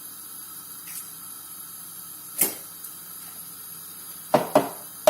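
An egg being tapped against a hard edge to crack its shell: one sharp knock about halfway through, then two quick taps near the end, over a steady faint hiss.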